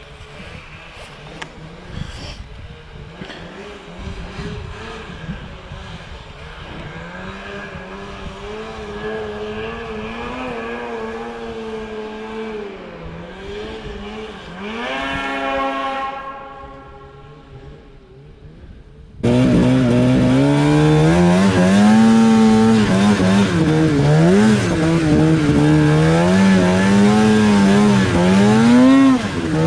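A snowmobile engine revving in the distance, its pitch climbing to a peak about halfway through and then fading away. About two-thirds of the way in, a much louder close-up Polaris Pro RMK 800 two-stroke engine cuts in suddenly, revving up and down with the throttle.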